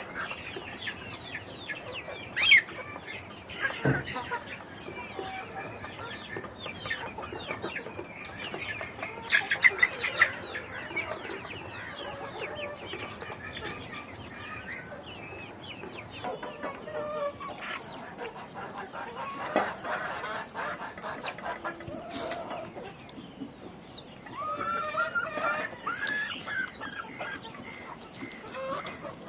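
A brooder of chicks peeping constantly, many short high chirps overlapping, with chickens clucking among them and louder bursts of calls now and then.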